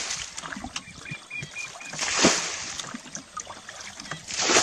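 A muddy pool being bailed by hand with a plastic bucket: two splashes of flung water, about two seconds apart, with softer sloshing as the bucket is scooped between them.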